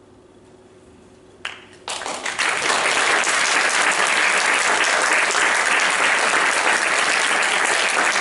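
Audience applause starting about two seconds in and going on steadily, after a hushed moment with one short sound just before it.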